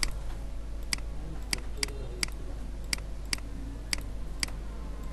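Computer mouse clicking, a sharp click roughly every half second at an uneven pace, over a low steady background hum.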